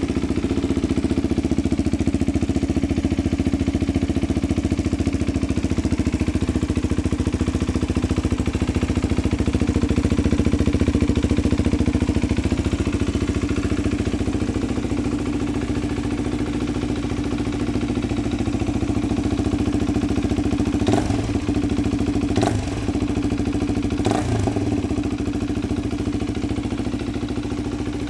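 KTM 390 Duke single-cylinder engine idling steadily through a full-system aftermarket exhaust with its dB killer fitted, with three short throttle blips near the end.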